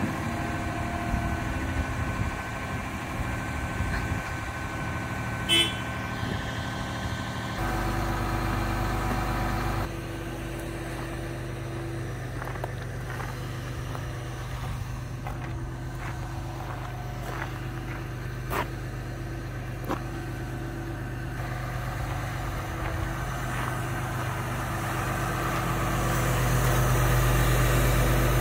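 Caterpillar 323 Next Gen excavator's diesel engine idling steadily, getting louder near the end. A brief high chirp comes about five seconds in.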